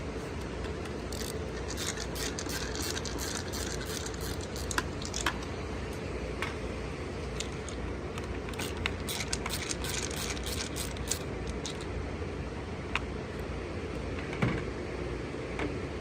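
Scattered light clicks and rattles of a screwdriver and small trim parts being handled as Torx screws come out of a panel, over a steady low hum.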